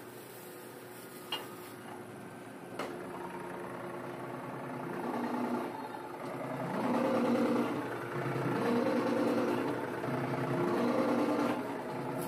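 Hydraulic leaf-spring pressing machine running, its power unit working harder as the ram presses down on a steel leaf spring, the hum swelling in several strong surges in the second half. Two sharp clicks sound in the first few seconds.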